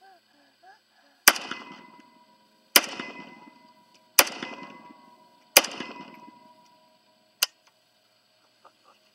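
Four shots from a Zastava M92 PAP AK-pattern pistol in 7.62×39mm, about a second and a half apart, each a loud crack with a long ringing echo that fades away. A shorter, quieter crack follows near the end.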